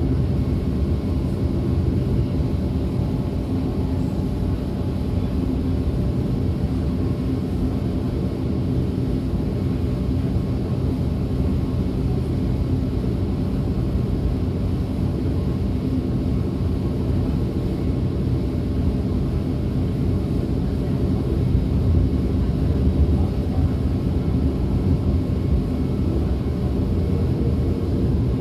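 DB class 425 electric multiple unit running steadily, heard from inside the passenger compartment: a continuous low rumble of wheels and running gear on the track, with a few faint steady tones above it.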